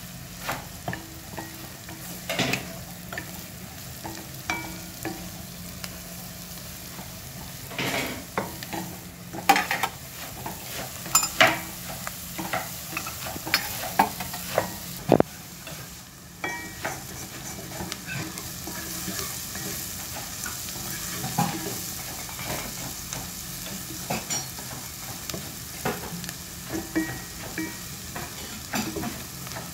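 Chopped onions sizzling in oil in a non-stick pot, stirred with a wooden spatula: a steady hiss under frequent knocks and scrapes of the spatula against the pot, loudest in the middle stretch.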